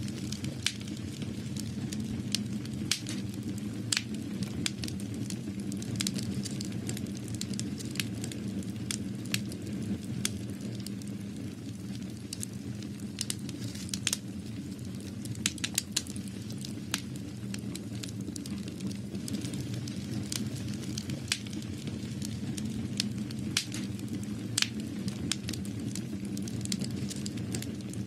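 Irregular sharp crackles and clicks over a steady low hum.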